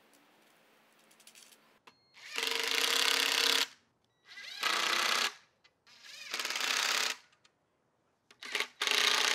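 Cordless driver running in four bursts of about a second each, with short pauses between, as screws are driven into the wooden seat slats of a cast-iron bench frame. A brief blip of the tool comes just before the last burst. The first two seconds hold only faint clicks of handling.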